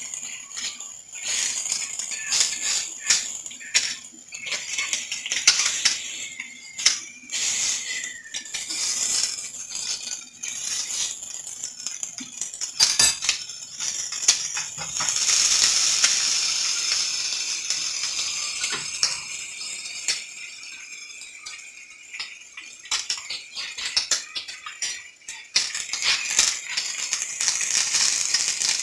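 Seasoned fish searing in hot oil in a cast iron skillet: a steady sizzle with crackling and spitting pops throughout. The sizzle swells louder about halfway through.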